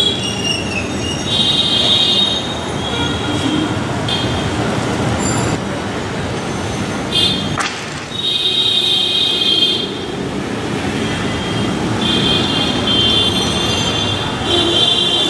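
Busy street traffic heard from above: a steady rumble of engines, cut through several times by shrill horn blasts, each about a second long.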